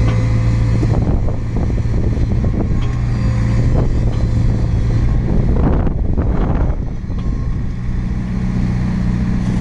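Diesel engine of a 2001 Komatsu PC95 midi excavator running steadily, with a rougher, noisier stretch partway through.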